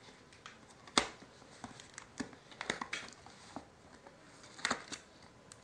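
Knife cutting the packing tape on a cardboard box, heard as scattered clicks, scrapes and knocks of the blade and hands on the box; a sharp knock about a second in is the loudest.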